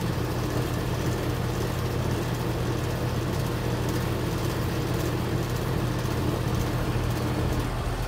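Outdoor unit of a 20-plus-year-old Gibson heat pump running, low on R22 refrigerant: a steady, even hum from the compressor and condenser fan with a constant rush of air.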